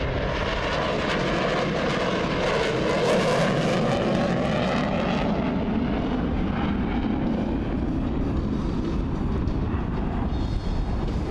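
F/A-18 Hornet fighter jet flying a demonstration pass: a steady jet roar that grows loudest and most hissing a few seconds in, then eases slightly as the jet moves away.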